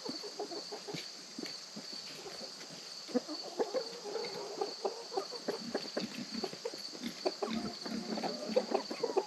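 A flock of hens clucking as they forage close by, the clucking getting busier from about three seconds in, over a steady high chirring of insects.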